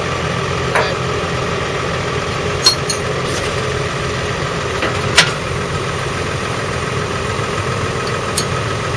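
New Holland T7.235's 6.7-litre six-cylinder diesel engine running steadily at idle, with a few short sharp clicks over it.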